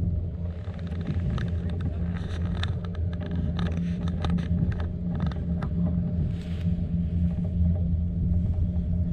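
Tram running along its track: a steady low rumble with a string of rattles and clacks for a few seconds in the middle.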